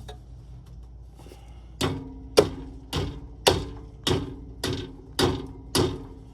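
Eight evenly spaced hammer blows on metal, a little under two a second, each leaving a short ringing tone: the car's exhaust being knocked loose from its hanger.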